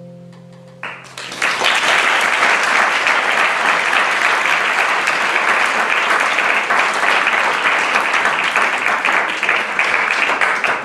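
The final chord of acoustic guitar and keyboard fades, and about a second in an audience breaks into applause that carries on steadily at full strength.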